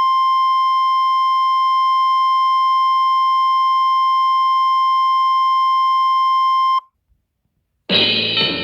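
A single steady, unwavering beep tone replaces the cut-off broadcast, as a radio station's dead-air test tone does when it drops off the air. The tone cuts off abruptly about seven seconds in. About a second later, music starts.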